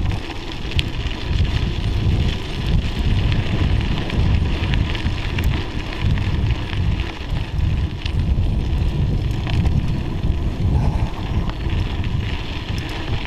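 Wind buffeting the microphone while a bicycle rides downhill, its tyres crackling over packed snow and ice.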